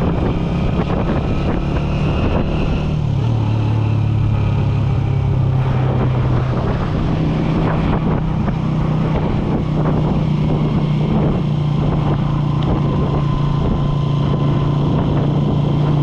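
Small motorcycle engine running at cruising speed, heard from the rider's seat. Its note drops about three seconds in and climbs back a few seconds later, then stays steady.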